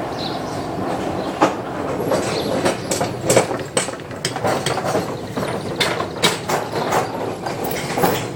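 Loose wooden deck planks of an old railway bridge clattering and knocking under passing traffic: a steady rumble with many irregular sharp wooden knocks. The planks rest on three supports, so they lift and slap down as vehicles roll over them.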